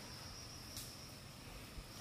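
Forest insects droning in one steady high-pitched tone, with a short crackle a little under a second in.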